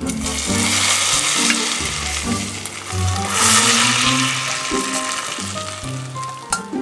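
Hot butter sauce with garlic and dried mint sizzling as it is poured into a pot of hot yogurt soup, the sizzle starting at once, strongest about halfway through and dying down toward the end. Background music plays throughout.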